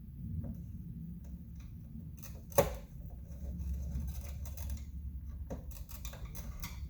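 Small scattered clicks and taps of a Torx driver and screw being worked against the plastic parts inside a car's side-mirror housing, trying to get the screw to bite. There is one sharp, loud click a little over two seconds in, over a low steady hum.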